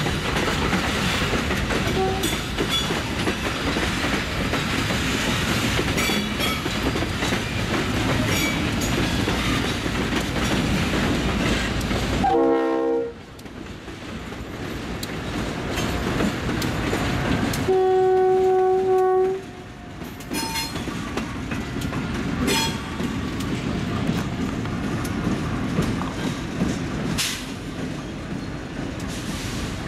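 Freight train of boxcars rolling past, wheels clattering over the rail joints. After a sudden drop in sound near the middle, a diesel locomotive's horn sounds one steady blast of about two seconds, the loudest moment. More train rumble with sharp wheel clicks on the rail follows.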